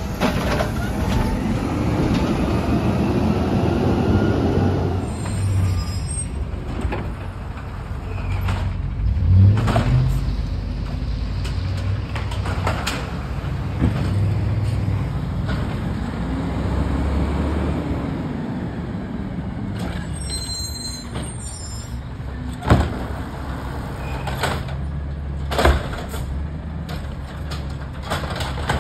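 Peterbilt 320 side-loading garbage truck running: steady engine hum, with a rising whine from the hydraulic arm in the first few seconds and several sharp bangs from the carts being handled, the loudest two near the end.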